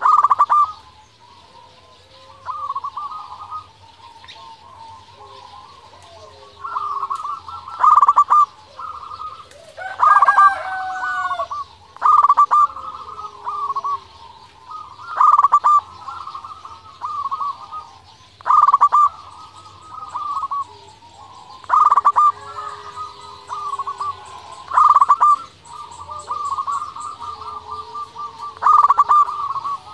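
Zebra dove (perkutut) singing its staccato cooing song. Loud phrases repeat about every three seconds, with softer coos between them.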